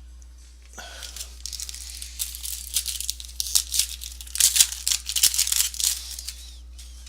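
A trading-card pack wrapper being torn open and crinkled, a run of rustling crackles starting about a second in and dying away near the end.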